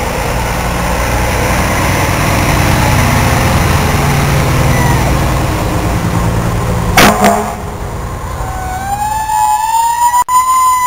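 Fire truck engine running as the ladder truck drives past, with a short, very loud blast about seven seconds in. Near the end a fire truck siren starts winding up, rising slowly in pitch.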